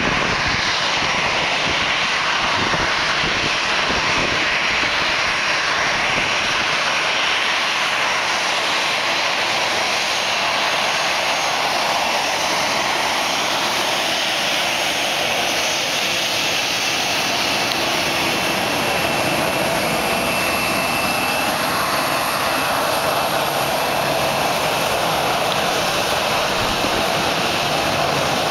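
Boeing 737 jet airliner's turbofan engines at taxi power: a steady jet engine noise, with a faint high whine coming in about halfway as the aircraft taxis past.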